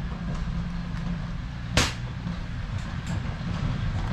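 Steady low rumble of wind on the microphone, with one sharp crack a little under two seconds in.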